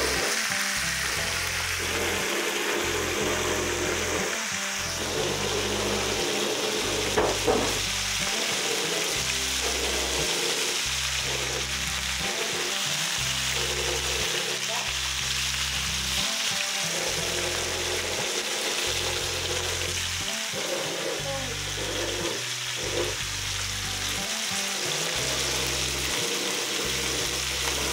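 Tilapia steaks frying in oil in a frying pan, a steady sizzle, with background music under it.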